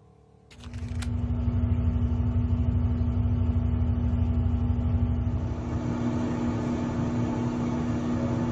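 Oven-style air fryer running at 180 °C: a steady fan hum with a deep rumble and one constant tone, starting about half a second in, with a single click about a second in.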